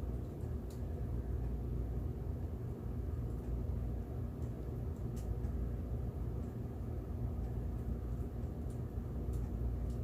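Steady low background rumble, with a few faint light clicks from small parts being handled.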